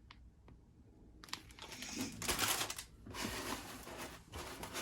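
Plastic packaging crinkling as it is handled close to the microphone. There are a few light clicks at first, then steady crackling rustles in two main spells from about a second in.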